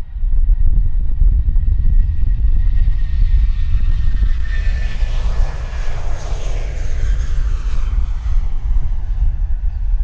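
Airbus A320 airliner's jet engines at takeoff thrust as it rolls past on its takeoff run. The engine rush swells to a peak about midway and then eases, with a high whine that drops slightly in pitch as it passes. A heavy, fluttering rumble from strong wind on the microphone runs under it.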